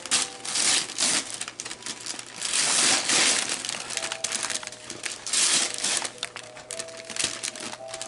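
Shiny gold metallic wrapping paper crinkling and rustling in irregular bursts as a present is unwrapped by hand. It is loudest about three seconds in.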